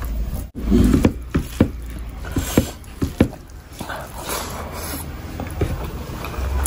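Close-miked eating sounds: curry-soaked rice squished and squeezed in a bare hand, then sharp wet lip smacks and chewing of a big mouthful, coming as irregular smacks about a second apart.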